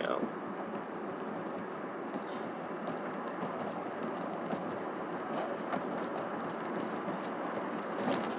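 Steady road and tyre noise heard from inside a moving car's cabin.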